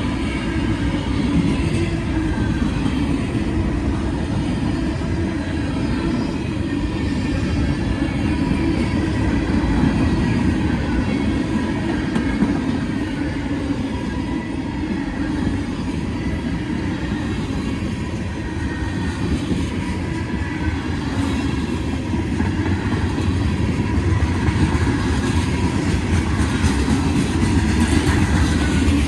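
Train cars rolling steadily past on the rails, a continuous heavy rumble with the clickety-clack of wheels over rail joints and faint wheel squeal, growing a little louder near the end.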